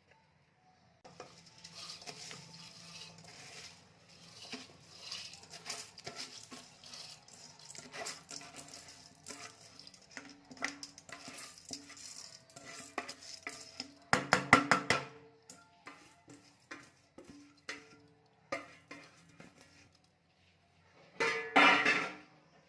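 Metal spoon scraping and clinking against a cooking pot during stirring, with irregular clicks throughout and two louder bursts of clattering, one about two-thirds of the way through and one near the end.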